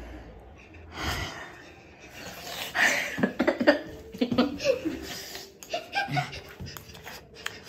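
A person laughing in short chuckles with audible breathing, loudest about three seconds in.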